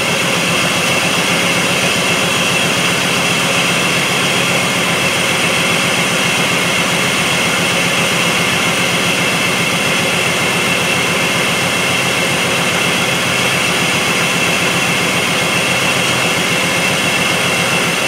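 2005 Jeep Liberty's 3.7-litre V6 idling steadily with the hood open. It is running rough with a multiple-cylinder misfire on cylinders 4 and 6, whose ignition coils have shorted secondary windings.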